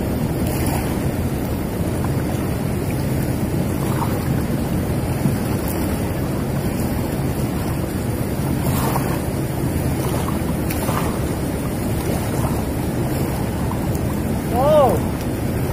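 Steady rushing noise of a muddy, swollen river flowing past a rocky bank. Near the end, a short call rises and falls in pitch.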